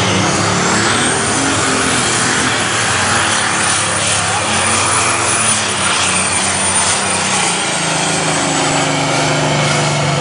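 Unlimited super stock pulling tractor with a Minneapolis-Moline G-1000 body, its engine running flat out under load as it drags the sled. A high turbo whine rises over the first couple of seconds, holds, then slowly falls as the run ends and the engine eases off near the end.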